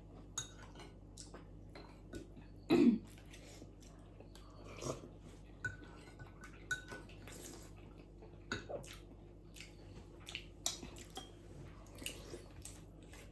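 Eating utensils clicking, tapping and scraping against bowls and plates, with a few short ringing clinks. One brief louder sound comes about three seconds in.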